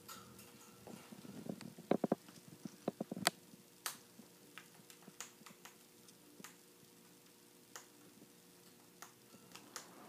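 Amazon parrot clicking and tapping at a plastic pellet cup and on the wire top of a travel cage, its beak working the pellets and its feet gripping the bars. A quick cluster of louder clicks comes in the first few seconds, then single ticks every so often.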